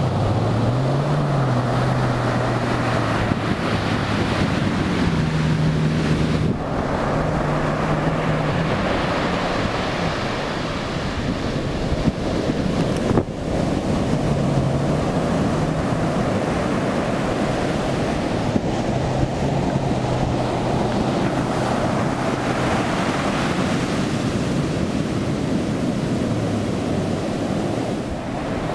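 Heavy surf breaking, with wind buffeting the microphone. Under it runs the low hum of a stand-up jet ski engine, rising and falling in pitch as it is throttled through the waves, dying away near the end.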